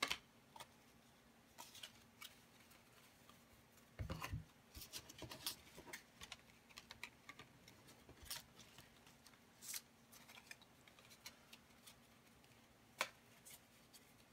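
Faint handling of a stack of hockey trading cards: cards sliding against one another and being set down on a desk, a scatter of light clicks and rustles with a louder cluster of taps about four seconds in, over a faint steady hum.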